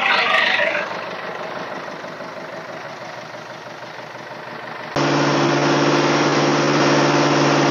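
An engine idling steadily. It is fairly quiet at first, then about five seconds in it cuts abruptly to a louder, even idle with a steady low hum.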